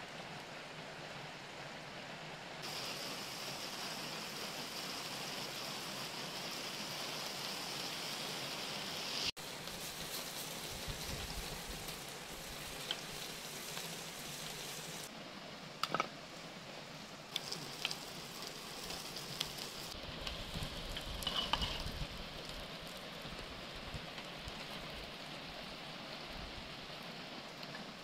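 Pepper-seasoned chicken strips sizzling in an oiled metal pan over a wood fire: a steady frying hiss with a few sharp clicks and pops around the middle.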